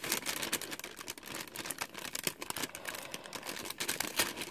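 Fingers picking at and peeling a sticker seal on a paper bag: soft, irregular paper crinkles and small ticking clicks.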